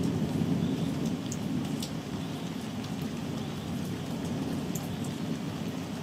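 Rain falling, with scattered close drop ticks, over a low, continuous roll of thunder that slowly fades.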